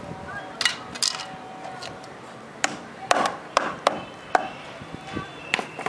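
Hammer striking a plywood bird feeder, about nine sharp, irregularly spaced blows, nailing on decorative trim strips.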